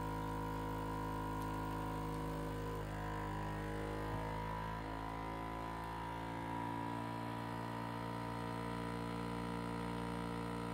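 Countertop MEAT! vacuum sealer's pump running steadily with a humming tone, pulling the air out of a bag of sliced bacon. The pitch shifts slightly a few seconds in as the bag draws tight.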